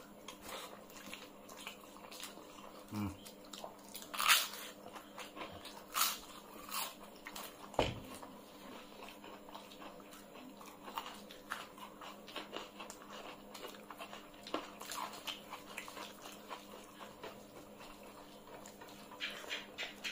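Close-miked eating sounds: two people chewing mouthfuls of rice and curry eaten by hand, with wet mouth clicks and a few louder crunchy bites in the first half.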